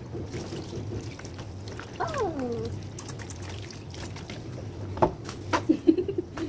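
Water splashing and trickling in a plastic tub as a Pomeranian puppy's wet coat is scrubbed by hand. About two seconds in there is one falling whimper from the puppy, and there are a few sharp splashes between five and six seconds in.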